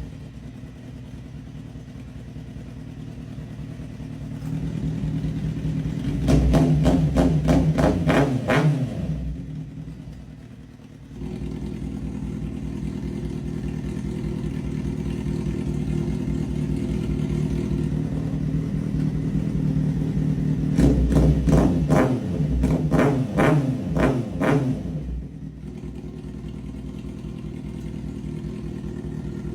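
A vehicle engine running steadily, with two loud stretches of rapid, sharp pops, about six seconds in and again past twenty seconds. Near eleven seconds the engine dips and then jumps back up to a steady, louder running.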